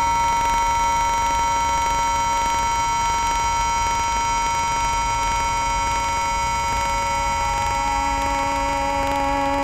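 Several devices tuned to the note A sounding together as a steady, sustained multi-tone drone; a lower tone joins near the end.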